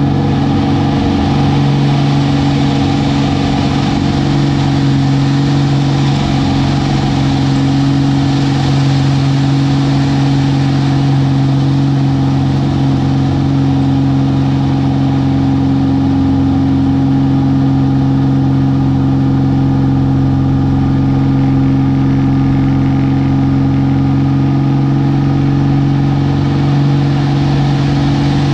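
Aerobatic airplane's engine and propeller running steadily at high power, heard loud and constant from inside the cockpit.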